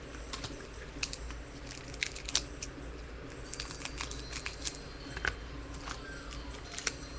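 Crinkling of a trading-card pack wrapper and the cards inside being handled: irregular small rustles and clicks.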